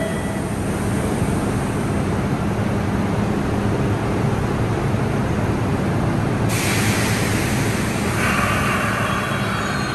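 MBTA Orange Line subway train at an underground platform, running with a steady low hum. About six and a half seconds in, a loud hiss starts suddenly, joined by a louder higher-pitched noise near the end.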